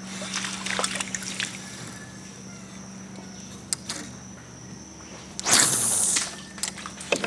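Water lapping and dripping around a small boat, over a low steady hum that stops about four seconds in and a faint high insect drone. A short, loud rush of noise comes about five and a half seconds in.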